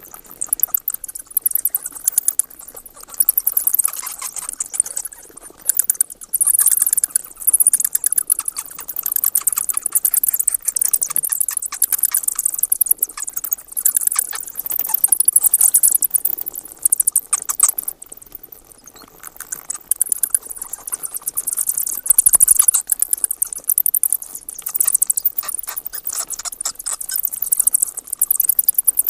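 Bats chittering: rapid high-pitched squeaks and clicks in bouts of several seconds, with brief lulls between them.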